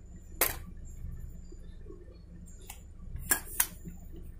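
Sharp clicks and clinks from an aluminium camera tripod being handled as its legs and lever locks are worked: one about half a second in, then three close together near the end.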